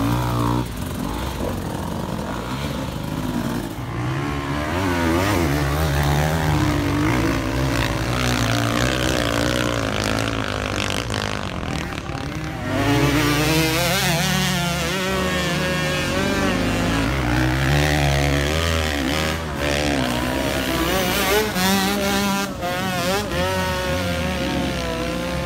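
Enduro dirt bike engines revving hard and unevenly under load as riders climb steep slopes, the pitch rising and falling with the throttle. The sound gets abruptly louder about halfway through.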